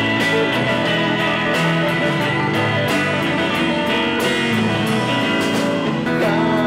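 Live band playing a guitar-driven passage of a song: electric and acoustic guitars strumming over a steady beat.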